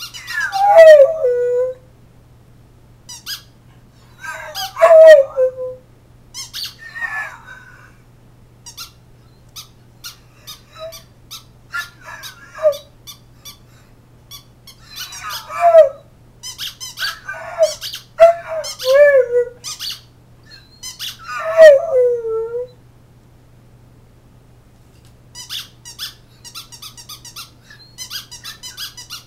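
Bully-breed dog howling in short, squeaky yowls that each slide down in pitch, repeated in bursts with brief pauses between them. It goes quiet near the end, leaving only faint clicks.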